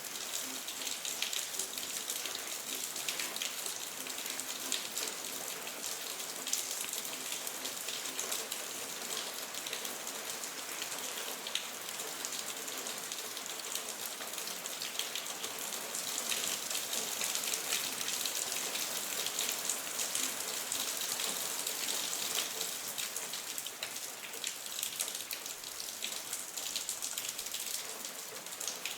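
Steady rainfall: a dense, even hiss of rain with many separate drops ticking through it.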